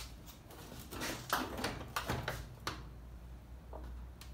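Plastic control console of a top-load washer being swung down and set back into place: a quick series of plastic knocks and rattles.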